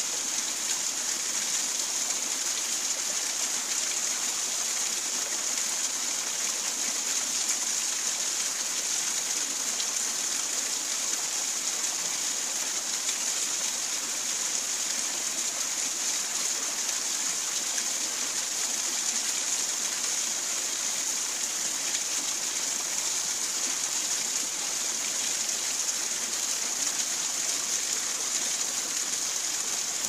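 The Schwarzwasser river's water flowing over rocks: a steady, even rushing hiss with little low rumble.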